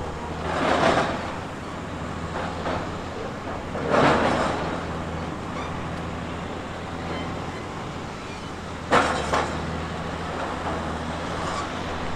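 Heavy earthmoving machine's diesel engine running steadily, with three louder rushing bursts of noise about a second in, around four seconds in, and near nine seconds.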